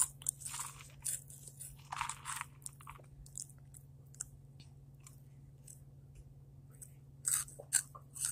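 Hot chips being crunched and chewed close to the microphone: crisp crunches in the first few seconds, a lull, then more crunching near the end.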